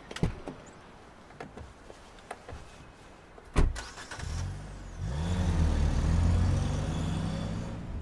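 Car door clicking open, then slamming shut with a loud thud about three and a half seconds in. The Mercedes-Benz G-Class V8 engine then starts and revs, running loudly to the end.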